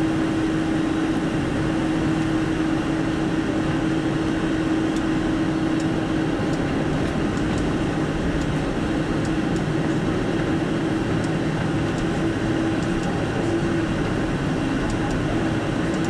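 Cabin noise inside a Boeing 747-400 taxiing, heard from a window seat over the wing: a steady hum of the engines at taxi power and the cabin air, with one steady held tone.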